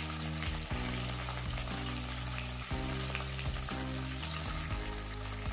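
Curry leaves, pandan leaves and cinnamon sizzling in hot coconut oil in a clay pot, with steady frying crackle. Background music with sustained low notes plays underneath.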